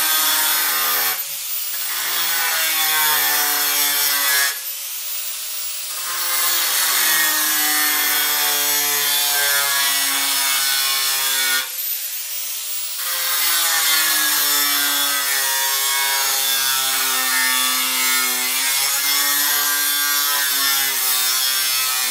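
Angle grinder with a round cutoff wheel cutting a straight line through sheet steel in shallow repeated passes, its motor whine and the wheel's hiss running steadily. The cutting drops away briefly three times, between passes, and each time the motor comes back up in pitch.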